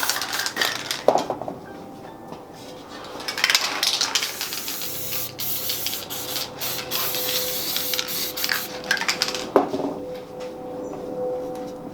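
Aerosol spray paint cans hissing in several short bursts, broken by sharp clicks and clatter of cans and tools.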